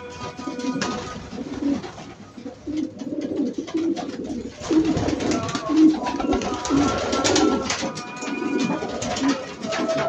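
Pigeons cooing in a loft, repeated low coos throughout, with a call to prayer sung over a distant loudspeaker in the background. Short hisses of a trigger spray bottle come from about five to eight seconds in.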